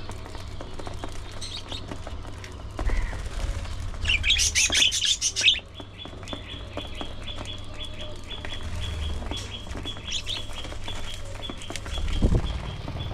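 Budgerigars chirping and chattering, with a loud burst of rapid chirps about four seconds in, followed by a long, fast series of short, evenly repeated high notes. A low rumble sits underneath, with a low thud near the end.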